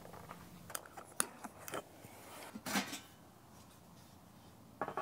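Light clicks and knocks of camp tableware being handled, a handful in the first two seconds, then a short scrape a little under three seconds in.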